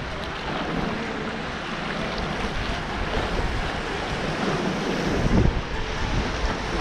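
River rapids rushing around a canoe, a steady noise of fast water, with wind buffeting the microphone; the wind rumbles louder about five seconds in.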